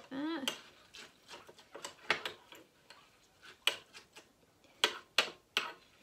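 Metal spoon stirring a thick mix of bird seed and melted lard in a ceramic mug, clinking and scraping against the mug in irregular knocks.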